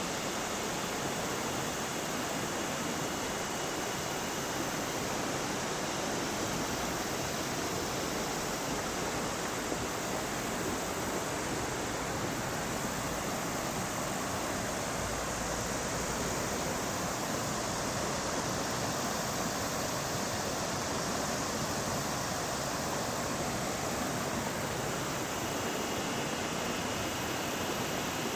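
River water rushing steadily over rocks in a continuous, even wash.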